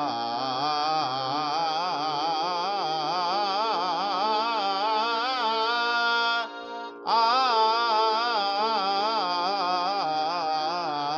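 A keyboard instrument plays a fast run of a sargam palta alankar over a steady held drone, breaking off briefly a little past halfway and then carrying on.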